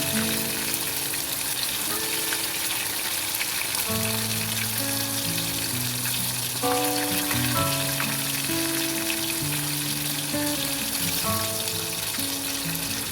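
Food frying in a pan with a steady sizzle, under background music of held notes.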